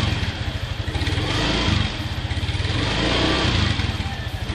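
Yamaha Mio 125S scooter's single-cylinder four-stroke engine revved up and down through a Yoshimura R77 aftermarket exhaust, during a sound check of the pipe.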